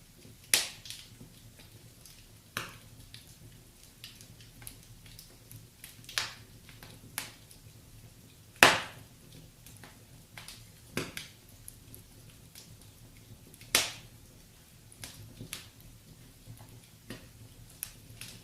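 Wood fire crackling in a fireplace: sharp, irregular pops and snaps over a faint steady low background, with the loudest pop a little before halfway through.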